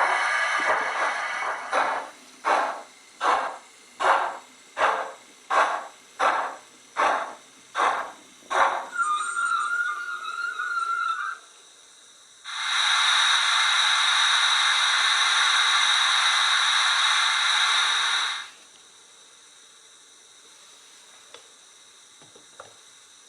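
Recorded steam-locomotive sound from a LokSound v5 sound decoder in a model LMS 8F, played through the small speaker in the tender: exhaust chuffs that become distinct beats about one and a half a second, then a brief squeal, then a loud steady hiss of steam for about six seconds that stops suddenly.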